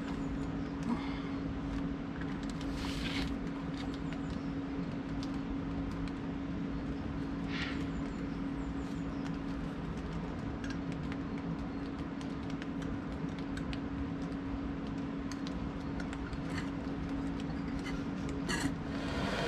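Steady rush of the flood-swollen Lahn pouring over a river weir, with a steady low hum underneath.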